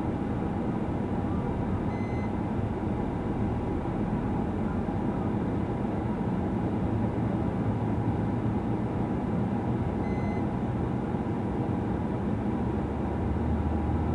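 Steady road and engine noise heard inside a moving patrol car, with a short faint electronic beep twice, about eight seconds apart.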